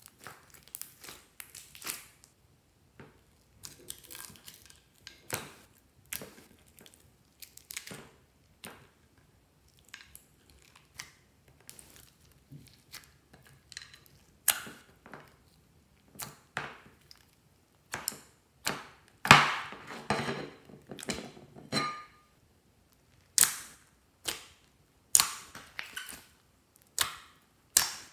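Hands squeezing, poking and kneading fluffy slime: an irregular run of sticky pops and clicks, with a longer, louder squelch about two-thirds of the way through.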